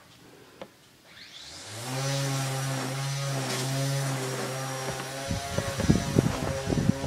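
A small engine or motor starts up with a short rise in pitch, then runs at a steady pitch. In the last two seconds a quick run of sharp knocks and clicks sounds over it.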